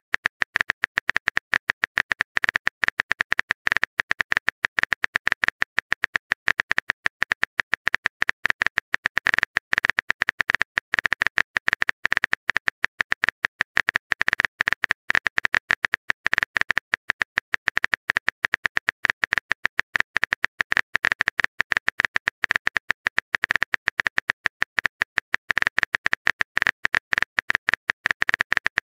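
Keyboard typing sound effect: a rapid, steady stream of short clicks as a text message is typed out.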